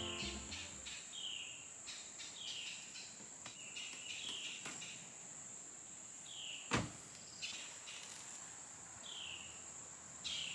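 Insects buzzing steadily at a high pitch while a bird repeats a short downward-slurred call every second or so. Over this come scattered knocks and clicks from a car's doors and gear being handled, the loudest a single thump about two-thirds of the way through. Music fades out in the first second.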